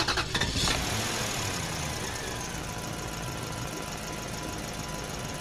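Steady engine-like rumble with a hiss over it, starting about half a second in and slowly fading. It is a sound effect laid under an animated logo, not a vehicle on screen.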